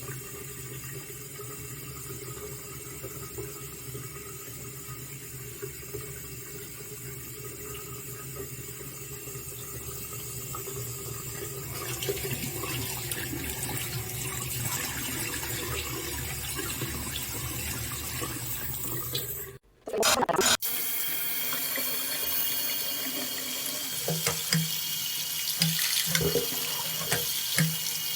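Water running from a single-lever waterfall-spout bathroom faucet into a sink as a steady rush. It grows louder about twelve seconds in, and after a brief break near twenty seconds it comes back brighter, with a few short low knocks.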